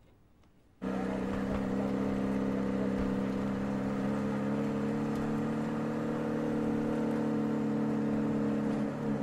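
A vehicle engine's steady drone, cutting in suddenly about a second in and holding an even pitch, with a brief drop in pitch near the end.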